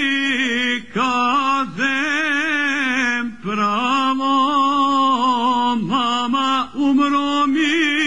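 Solo male voice singing a Krajina folk song in phrases of a second or two, separated by short breaths, with a wavering, trembling ornament on the held notes.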